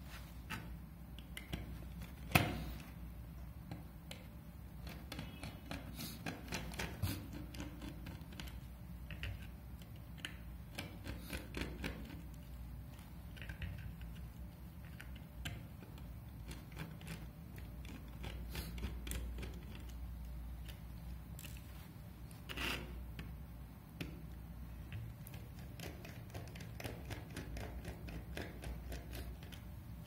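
Small irregular clicks and scrapes of a precision screwdriver being handled, its bit changed, and turned in the tiny cover screws of a laptop hard drive, with a sharper click a couple of seconds in and another about three-quarters of the way through.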